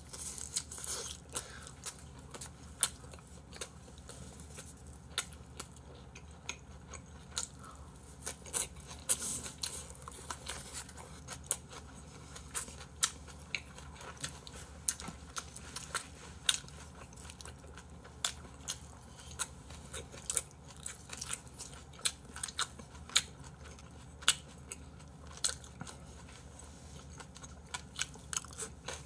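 Close-miked eating of duck barbecue: chewing and biting, with irregular sharp clicks and crunches about one or two a second.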